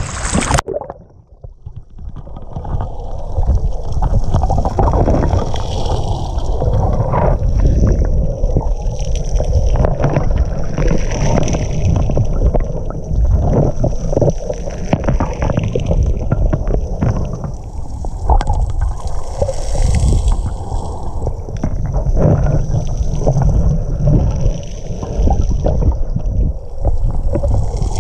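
Lake water heard with the microphone held underwater: a muffled low rumble of moving water with many scattered small clicks and knocks. It cuts from the open-air splash to the muffled underwater sound about half a second in.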